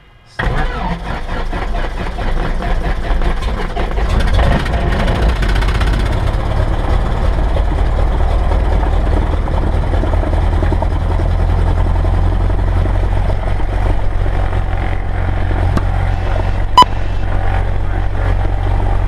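Cessna 172S's fuel-injected Lycoming four-cylinder engine starting after priming: it catches suddenly about half a second in and runs steadily, growing louder around four seconds in. A short sharp click sounds near the end.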